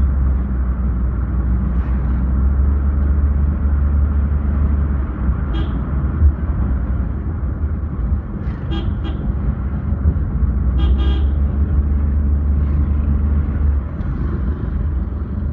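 Steady low road and engine rumble heard from inside a moving car's cabin, easing a little near the end. Short vehicle horn toots cut in a few times, around the middle.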